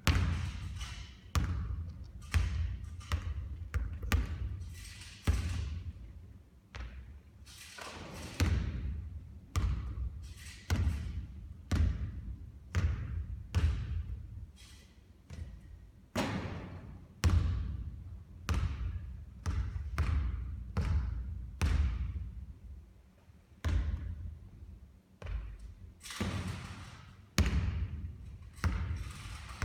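Basketballs bouncing on a court floor: repeated thuds at an irregular pace of about one or two a second.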